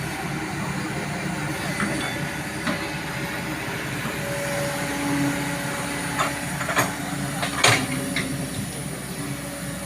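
Kobelco hydraulic excavator's diesel engine running steadily while it works, with a few sharp clanks. The loudest clank comes about three-quarters of the way through.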